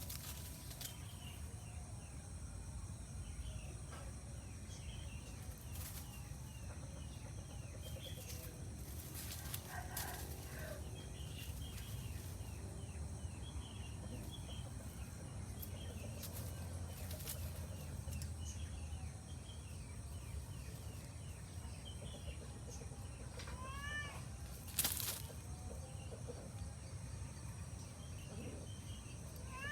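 Outdoor garden ambience of many small bird chirps running on steadily over a high steady hum, with a few scattered clicks. A cat meows once about three-quarters of the way through, followed shortly by a sharp click.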